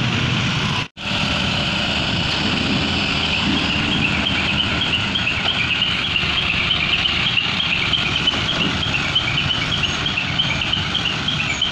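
Engines of mobile cranes and road vehicles running steadily, with a repeated high chirping through the second half. The sound cuts out briefly about a second in.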